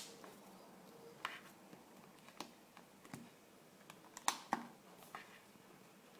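Faint, irregular light clicks from a plastic LED projection alarm clock being handled, about half a dozen in all, with two sharper ones close together about four seconds in.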